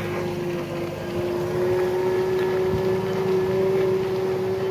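Truck engines running steadily: a constant droning hum that holds one pitch, over a low rumble.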